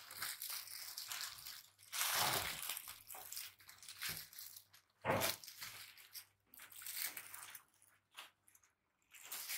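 Irregular rustling and crinkling of packaging being handled, in uneven bursts with short pauses between them.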